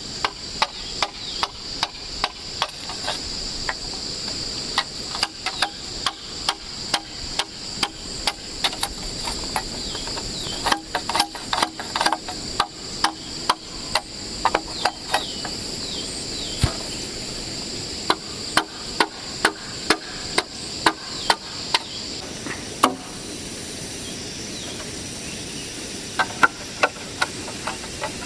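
Repeated hand-tool strikes, about two a second, with a few short pauses. A steady high insect drone runs underneath and stops about three-quarters of the way through.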